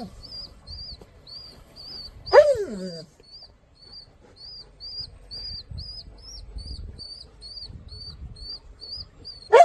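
A fledgling bird cheeping steadily, about three short high chirps a second, as it begs with fluttering wings. A dog gives a short, loud whine that falls in pitch about two seconds in, and another at the very end.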